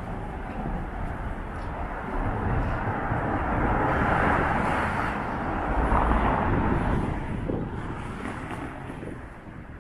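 A vehicle passing by in street ambience: a broad rushing noise that builds to its loudest about four to six seconds in, then fades away.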